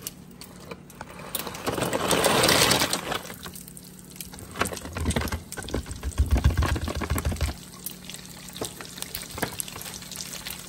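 Dried pork skin pellets poured from a plastic bag into hot oil in a frying pan: a loud rushing pour about two seconds in, low bumps midway, then a light crackling sizzle with scattered ticks as the pellets begin to fry and puff.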